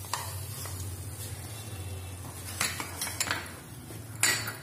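Utensils clinking and knocking as an egg paratha is moved off a tawa griddle pan onto a plate: a few light clicks a little past halfway and a louder knock near the end, over a steady low hum.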